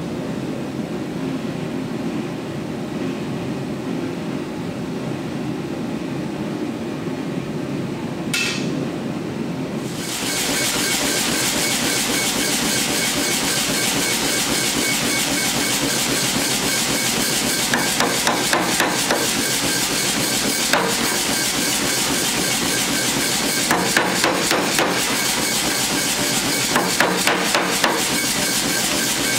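Hammer blows on a handled top tool set over red-hot high-carbon steel on a steel block. They come in short bursts of a few quick strikes, four times over the last dozen seconds, above a steady loud hiss. Before that, a lower steady rumble of the running gas forge with one metallic clink.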